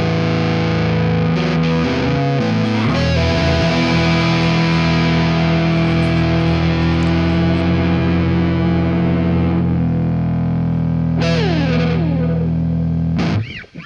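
Background rock music on distorted electric guitar, holding long chords. Near the end a falling pitch slide, then the music cuts off abruptly.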